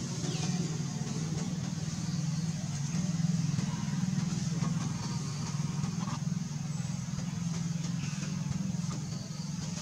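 A motor vehicle engine running steadily with a low hum, under a faint steady high-pitched hiss.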